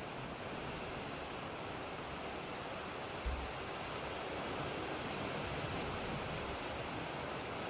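Steady rainstorm hiss, an even rushing noise with no pauses. A brief low thump about three seconds in.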